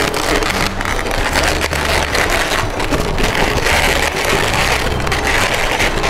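Inflated 260 latex modelling balloons rubbing against each other and against the hands as the finished balloon lobster is pressed and shaped, a dense run of rubbery friction noise.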